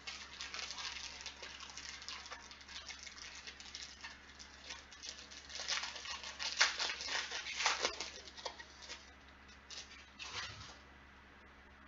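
Plastic wrapper of a pack of trading cards crinkling and tearing as it is opened by hand: a run of quick crackles, loudest around the middle.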